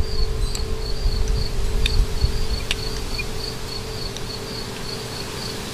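An insect chirping steadily in an even high-pitched rhythm, about three chirps a second, over a steady low hum and a low rumble, with a couple of faint clicks.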